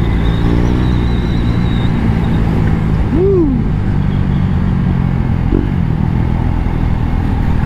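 KTM Duke 390's single-cylinder engine running at a steady cruise under a constant rush of noise. About three seconds in, a short tone rises and falls.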